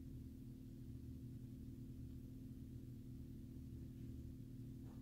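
Faint, steady low hum made of several held tones, with no thunder or other event standing out; a brief faint chirp comes just before the end.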